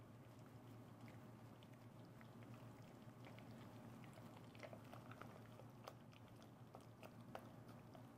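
Faint wet squelching of sliced chicken being stirred through a thick egg-white and cornstarch marinade with wooden chopsticks in a stainless steel bowl, with occasional light clicks of the chopsticks against the bowl over a low steady hum.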